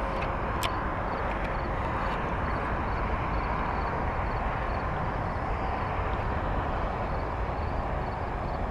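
Steady drone of highway traffic, with faint high chirps repeating evenly through it and a single sharp click just after the start.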